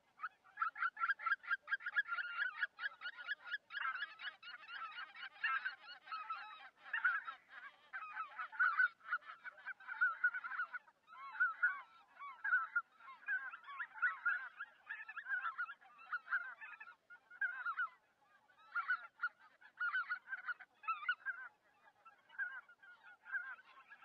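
A flock of greylag geese honking, many calls overlapping. The calling is thickest over the first ten seconds or so, then comes in more broken runs.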